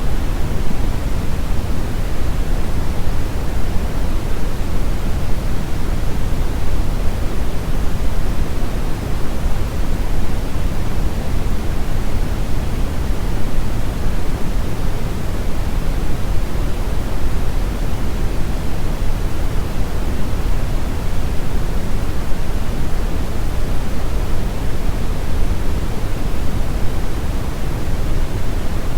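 Steady noise sound effect: a loud, even rushing hiss, heavier in the low end.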